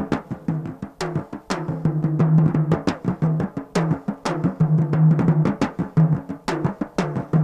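Indian film soundtrack music in a drum-led passage: rapid, dense drum strokes over a recurring low note, with no singing.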